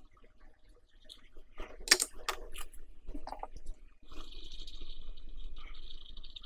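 Soldering iron heating desoldering braid on a circuit-board pad: the flux crackles and spits in a cluster of sharp pops about two seconds in. From about four seconds on, a cotton swab scrubs the board with a steady rubbing hiss.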